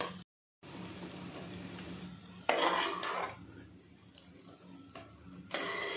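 Metal ladle scraping through stir-fried greens in an aluminium cooking pot as they are scooped out, in two short bursts about three seconds apart, over a faint steady hum.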